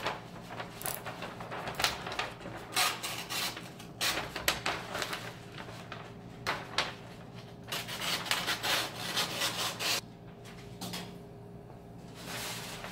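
A utility knife cutting through a sheet of paper stencil, with the paper rustling as it is handled and the cut-out piece lifted free: a string of irregular scratchy strokes that thin out after about ten seconds, with one more rustle near the end.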